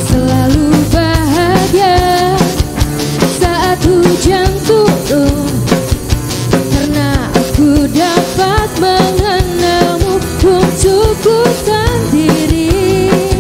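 Live pop-rock band playing: a woman singing the lead over a drum kit, electric guitars and an acoustic guitar.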